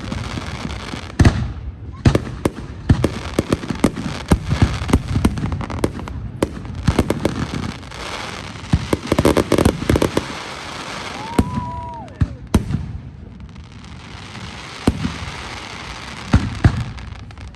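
Aerial fireworks going off in quick, irregular volleys: many sharp booms and pops over a near-continuous crackle, with brief lulls between barrages.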